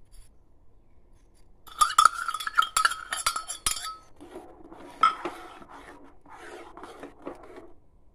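Steel spoon and glass clinking against a steel saucepan as sugar is stirred into water: a quick run of ringing metal clinks about two seconds in, then the spoon scraping round the pan, with one more clink about five seconds in.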